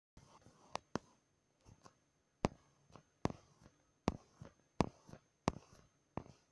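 Sharp, light clicks of fingers tapping a smartphone touchscreen, about nine at irregular intervals.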